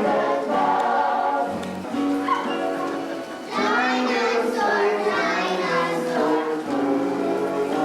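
Several voices singing a song together over instrumental accompaniment in a stage play, with held notes.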